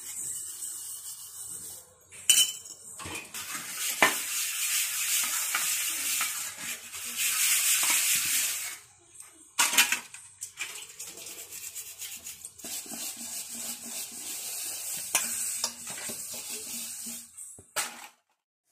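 A steel-wool scrubber scouring stainless-steel dishes in a sink: a scratchy rasp in long stretches, with a few sharp clinks of steel dishes knocking together. The scrubbing stops briefly about two seconds in, again around nine seconds, and near the end.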